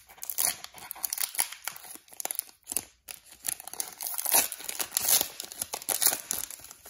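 Foil wrapper of a Pokémon TCG booster pack being torn open across the top and crinkled as it is pulled apart: quick, irregular crinkling and tearing, with a short pause just before three seconds in.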